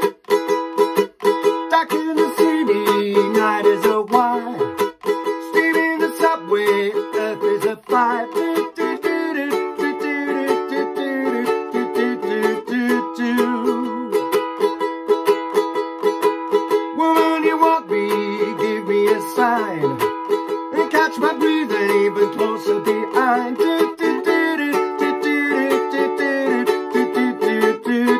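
Ukulele strummed in a steady driving rhythm, with a man's voice singing along over it in several stretches.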